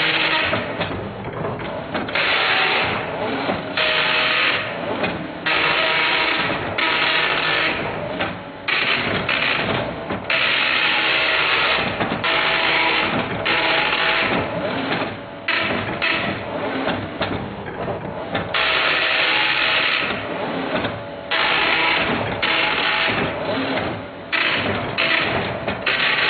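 Dot matrix printer printing: the print head buzzes in loud bursts of about half a second to two seconds each, broken by short pauses.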